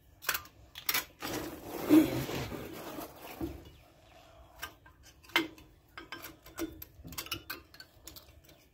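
Metal clicks and scraping as a new front brake pad for a 2007 Ford Expedition is forced into the stiff retaining tabs of the caliper bracket. There are two sharp clicks, then a metal-on-metal scrape that is loudest about two seconds in, then scattered lighter clicks.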